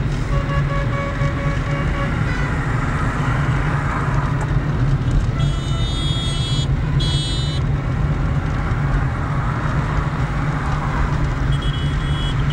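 Road traffic: a steady low engine rumble with short vehicle horn toots, a lower one in the first two seconds, two high ones about halfway and another near the end.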